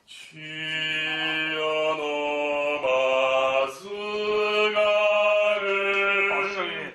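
A man singing long, held notes in an operatic voice, with no accompaniment heard; the pitch steps up about four seconds in.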